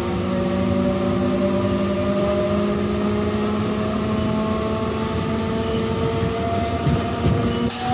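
MEMU electric train running along the line, heard from inside the carriage: a steady rumble of wheels on track, with several hums that drift slowly in pitch. A short burst of noise comes just before the end.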